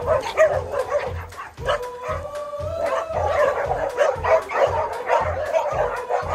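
Dogs whimpering and yipping over background music with a steady beat.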